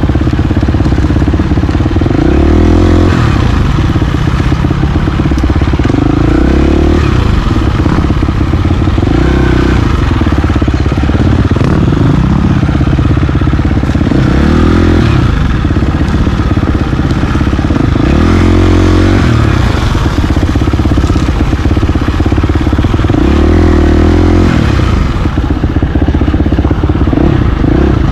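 KTM 350 XC-F dirt bike's four-stroke single-cylinder engine running hard along a single-track trail, its note rising and falling repeatedly as the throttle is opened and closed.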